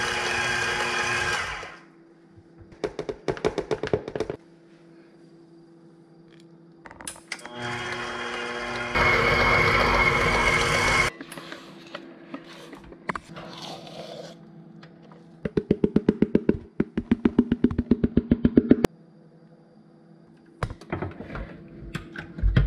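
KitchenAid Professional 600 stand mixer running in bursts, its motor starting and stopping as the paddle beats thick cake batter in the stainless steel bowl. Between runs there are scraping sounds and two runs of quick, evenly spaced knocks.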